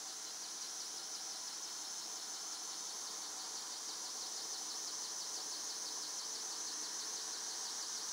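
Steady, high-pitched chorus of insects trilling, a fast even pulsing.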